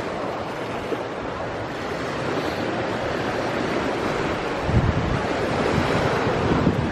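Steady rush of sea waves and wind, with wind buffeting the microphone in low gusts about five seconds in.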